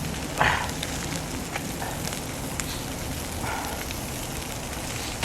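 Campfire crackling: a steady hiss with scattered small pops.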